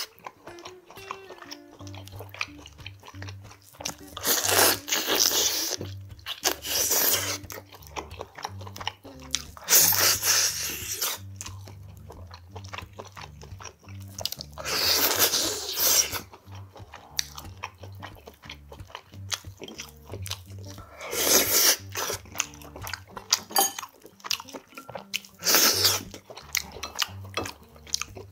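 Close-miked eating: a person chewing and gnawing meat off the pork neck bones of gamjatang (Korean pork bone stew). Wet mouth sounds rise to a loud burst about every five seconds, with faint clicks of chewing between them.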